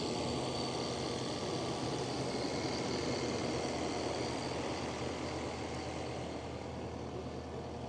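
Diesel engine of a Takeuchi TL12V2 compact track loader running at a steady pitch, easing slightly about five seconds in.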